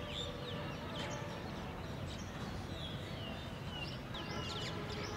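Many small birds chirping and calling, short quick notes that come thickest near the end, over a steady low background noise.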